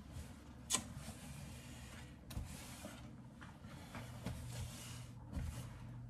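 Quiet kitchen handling noise over a low steady hum, with one sharp knock about a second in.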